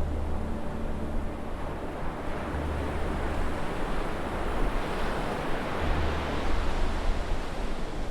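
Ocean surf, with wind buffeting the microphone. A wave swells and breaks about five seconds in.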